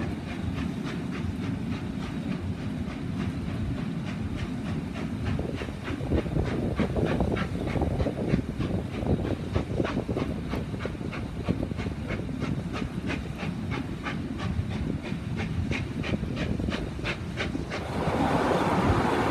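Victorian Railways R class steam locomotive R761 running ahead of the train, its exhaust beats coming rapidly and evenly over the rumble and clatter of the carriage on the rails, heard through an open carriage window. Near the end it gives way to a loud rush of wind on the microphone.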